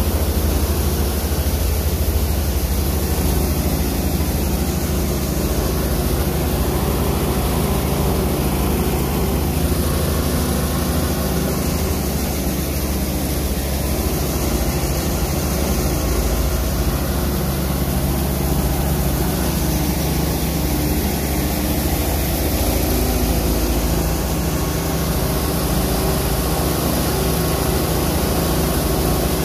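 Malkit 997 combine harvester running steadily, its engine and threshing machinery humming at a constant pitch while the unloading auger pours grain into a trailer.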